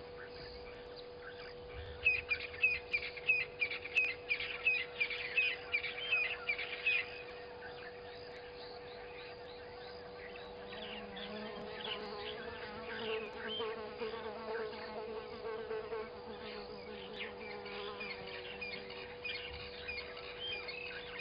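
Birds calling over a steady hum: for a few seconds near the start, a run of sharp, repeated high notes, about two or three a second; then softer chattering and trilling calls through the rest.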